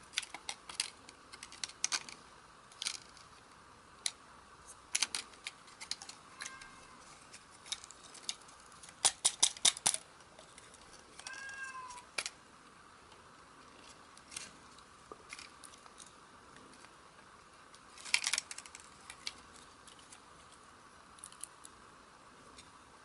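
Small sharp clicks, taps and snaps of a dashcam's plastic casing, speaker and circuit board being handled and pulled apart, in scattered bursts; the loudest are a quick run of clicks about nine seconds in and another cluster about eighteen seconds in. A brief high-pitched squeal about eleven seconds in.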